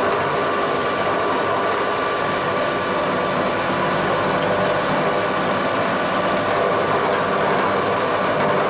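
Hafco HM 54GV milling machine running, its end mill cutting across the top of an aluminium block as the table feeds: a steady whine over the noise of the cut.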